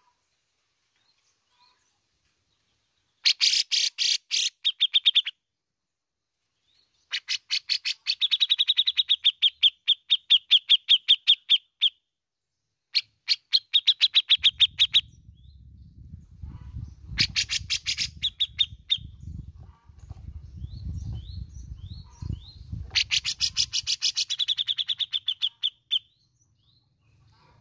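Grey-cheeked bulbul (cucak jenggot) singing its fast chattering 'besetan': five bursts of rapid, sharp repeated notes, each lasting a few seconds, with pauses between. A low rumble runs under the middle bursts.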